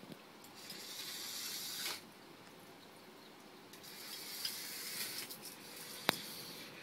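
Small toy car's motor and gears whirring in two bursts of about a second and a half as it runs across a tiled floor. There is one sharp click near the end.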